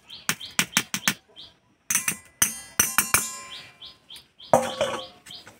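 Stainless-steel mesh strainer knocked and tapped repeatedly against a steel plate to empty washed rice out of it: a string of sharp metallic clicks and knocks, with a ringing clang about two and a half seconds in. A bird chirps over and over in the background.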